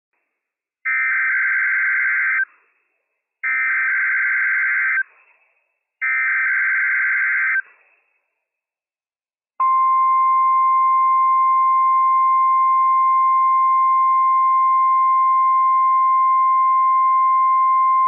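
NOAA Weather Radio SAME header: three short bursts of warbling digital data, each about a second and a half long, marking a Required Weekly Test. Then the weather radio's 1050 Hz warning alarm tone sounds, a single steady beep held for about eight seconds.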